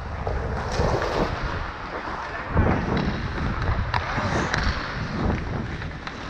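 Ice hockey skates scraping and carving on rink ice during play, with wind buffeting the helmet-mounted camera's microphone and a few sharp clacks scattered through.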